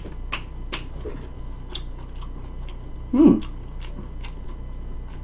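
Close-miked chewing and biting: a string of sharp wet mouth clicks and smacks, several a second. A short vocal sound comes about three seconds in.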